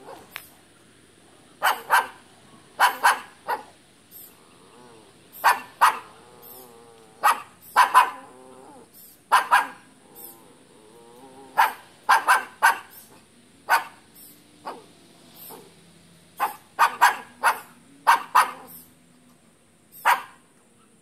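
A dog barking repeatedly: about two dozen short barks at irregular intervals, often in quick twos and threes.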